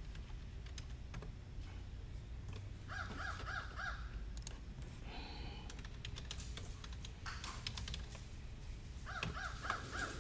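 Computer keyboard typing, scattered key clicks. Twice, about three seconds in and again near the end, a bird gives a quick run of four or five harsh cawing calls.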